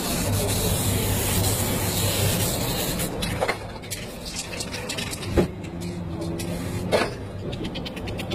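Aerosol spray-paint can hissing as white paint is sprayed onto a canvas for the first few seconds, over a steady low hum. The hiss then stops, and three sharp clicks and fast light ticking follow.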